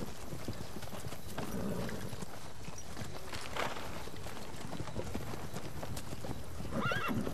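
Horses' hooves clip-clopping, many overlapping hoofbeats, with a short pitched call that rises and falls near the end.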